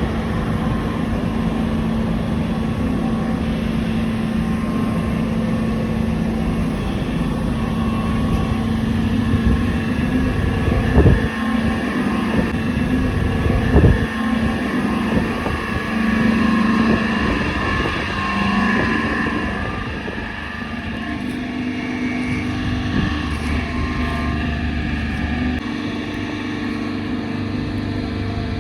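Steady machinery drone with a wavering hum, broken by two sharp metallic-sounding knocks a few seconds apart near the middle.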